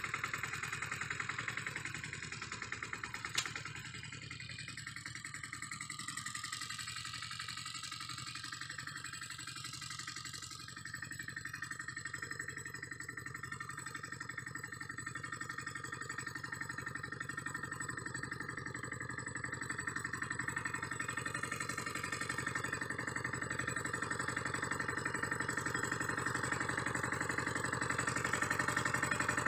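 Two-wheel tractor's small engine running steadily as it pulls a plough through the soil, growing louder over the second half as it comes back closer. A single sharp click about three seconds in.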